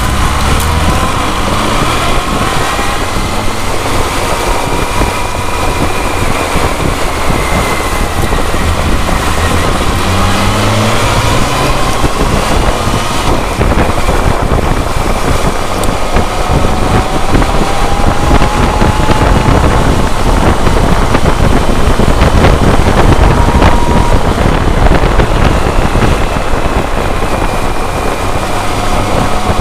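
BMW K1200R Sport's inline-four engine running on the move, its pitch slowly rising and falling with the throttle, under heavy wind buffeting on the microphone.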